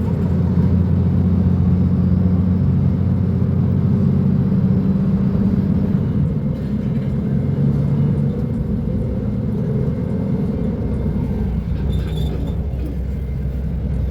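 Engine of a Mercedes-Benz O500U city bus with a Voith automatic gearbox running while under way, a steady low drone. Its note shifts in the middle, then settles lower and a little quieter.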